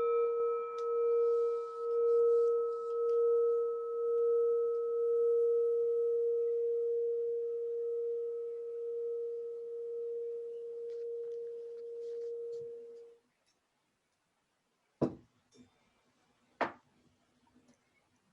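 A meditation gong rings after a single strike, a pure sustained tone with a slow wavering pulse that fades away and stops about 13 seconds in. Two sharp clicks follow near the end.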